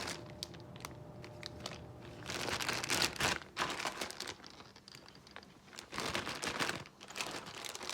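Plastic bags crinkling as plastic model-kit sprues are handled, in irregular rustling bursts with a few light clicks of the plastic parts.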